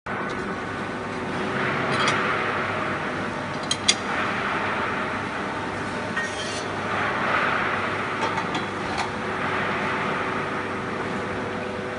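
Wheelbarrow welding machine running through its work cycle: a steady mechanical noise that swells about every five seconds. Sharp clicks and a short burst of hiss come in between the swells.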